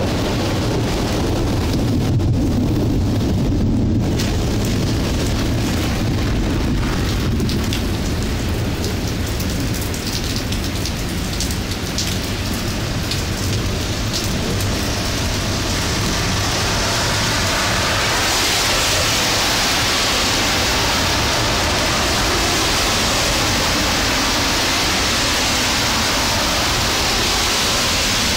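Thunderstorm: a low thunder rumble over the first several seconds, with rain falling throughout. About two-thirds of the way in the rain turns into a heavier, steady hiss.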